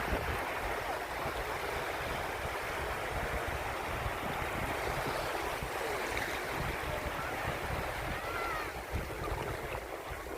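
Sea waves washing steadily onto a beach, with wind buffeting the microphone as a low, fluttering rumble.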